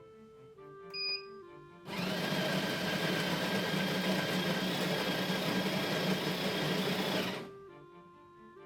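The built-in grinder of a Smeg BCC01 bean-to-cup coffee machine grinding beans. It starts about two seconds in, runs steadily for about five seconds with a low hum, and stops suddenly.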